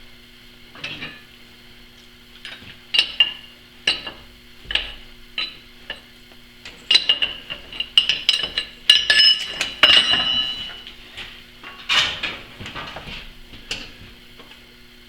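Metal tools and parts being handled on a metal-shop bench, clinking and clanking against each other in irregular knocks with short metallic ringing, busiest around the middle. A faint steady hum runs underneath.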